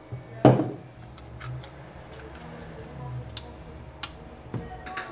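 A single knock about half a second in, then a few light clicks and taps as a thin pry tool works along the edge of a phone's glass back cover.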